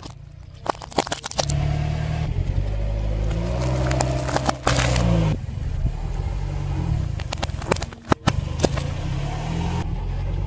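Car tyre crushing small objects with the engine running low underneath, played backwards: clusters of sharp cracks and snaps, and a spray of fizzing soda from a burst can that swells and then cuts off suddenly.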